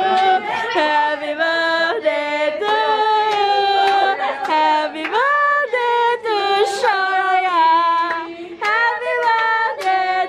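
Several voices, mostly women's, singing a song together, with long held notes.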